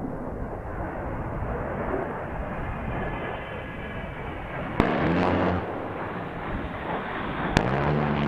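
A-10 Warthog's turbofan engines roar steadily as it flies low past. About five seconds in, its 30 mm GAU-8 Gatling gun fires a burst of just under a second, heard as a deep buzz. A second burst starts near the end.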